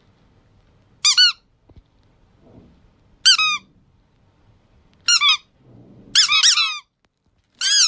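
A squeaky toy squeezed five times, giving short high-pitched squeaks. The fourth squeeze is longer, a run of quick squeaks.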